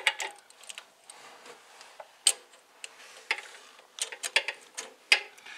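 Irregular metallic clicks and clinks, a few sharp ones about a second apart, from a socket wrench on a long extension working the bolts out of a crankshaft pulley.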